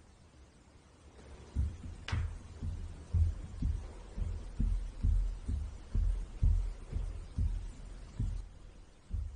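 A sharp pop about two seconds in as a pin pricks the balloon skin around a ball of grape jelly, over a run of dull low thumps about twice a second.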